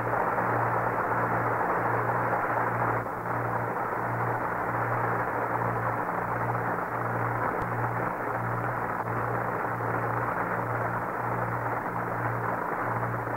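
Studio audience applauding after a song, heard through the narrow, hissy sound of an old radio recording, slowly easing off. A low hum pulses on and off beneath it about once a second.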